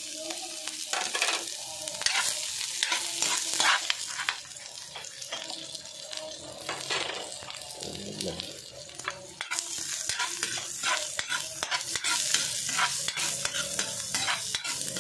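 Chopped garlic, ginger and onion sizzling in hot oil in a metal wok, stirred with a metal spatula that scrapes and clinks against the pan over and over.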